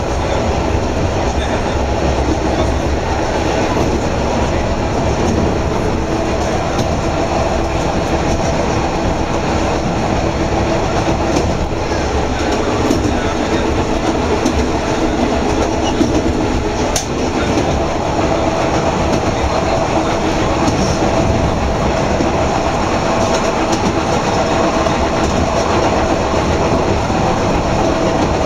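Running noise of a HÉV suburban electric train heard from inside a passenger car while it travels: steady rumble of the wheels on the rails and the car body.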